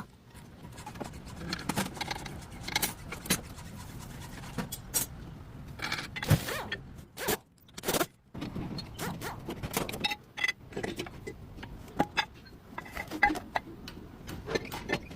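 Irregular clinks, taps and short scrapes of metal hand tools and brake parts being handled while front brake pads are changed.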